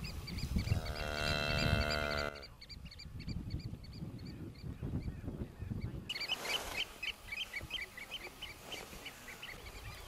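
A cow lowing once in a long, steady call of about a second and a half, followed by small birds chirping in quick, repeated short notes.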